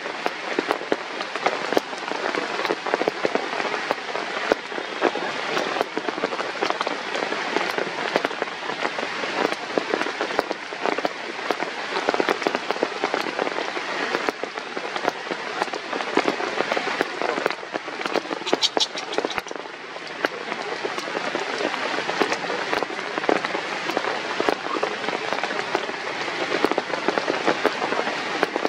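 Steady rain falling on leaves and wet ground, a dense crackle of drops. A brief high-pitched trill cuts in about two-thirds of the way through.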